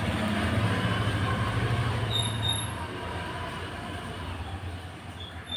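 Rumble of a passing vehicle, loudest over the first three seconds and then fading, with brief high squeals about two seconds in.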